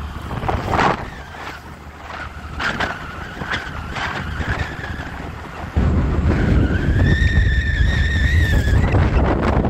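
Wind buffeting the microphone of a moving scooter, with road and engine noise, turning into a much heavier rumble about six seconds in. Near the end a high, slightly wavering tone sounds for about two seconds.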